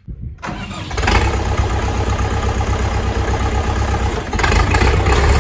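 Forte RD404 mini tractor's KM490BT four-cylinder direct-injection diesel engine running with a steady low rumble. It comes in about a third of a second in, is fully loud by about a second, and gets louder again about four seconds in.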